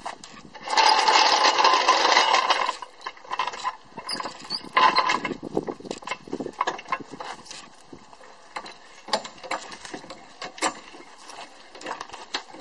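Torin steel floor jack pushed into place with about two seconds of scraping, rattling noise, then worked by its handle with a long run of irregular clicks and clunks as the saddle rises to lift the car.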